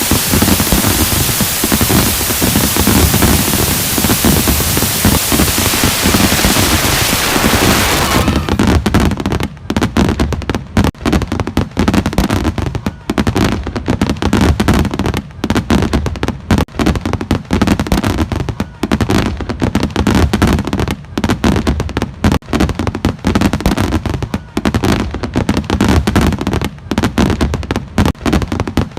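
Fireworks display: a steady loud hiss for about the first eight seconds, then it cuts abruptly to a rapid, dense run of bangs and crackling bursts with a low rumble beneath.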